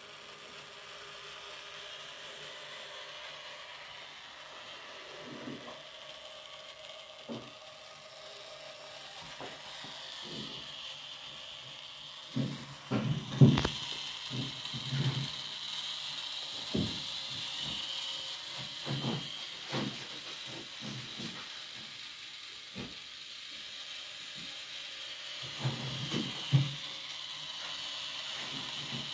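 Small 45 rpm geared DC motor turning two meshed plastic gears that flap the wooden wings of an ornithopter model: a steady whir with irregular clicks and knocks from the gears and wooden linkage, bunched about halfway through and again near the end.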